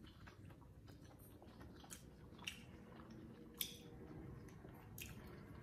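Faint chewing of a mouthful of bulalo beef shank, with about four soft, brief clicks spread through.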